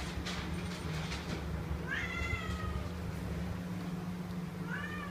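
Two-month-old domestic shorthair kitten meowing twice: short, high-pitched mews, the first about two seconds in, the second near the end.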